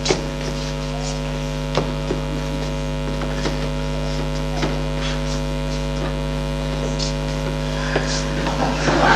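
Steady electrical mains hum with a low buzz runs under the recording, with a few faint knocks scattered through it. Near the end a wash of audience noise begins to rise.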